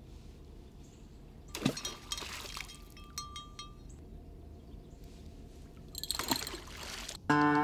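Water splashing twice in a muddy river, once about a second and a half in and again around six seconds, with faint trickling between. Acoustic guitar music starts just before the end.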